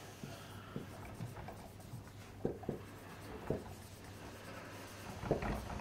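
Marker writing on a whiteboard: a series of short, faint, irregular strokes as words are written, a little louder near the end.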